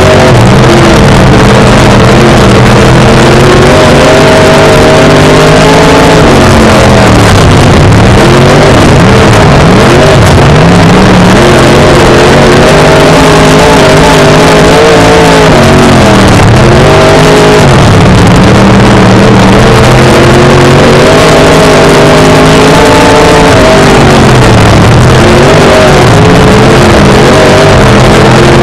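Dirt-track modified race car's V8 engine heard from inside the car at race speed, constantly very loud. Its pitch drops off and climbs back up every few seconds as the driver lifts for the turns and gets back on the throttle.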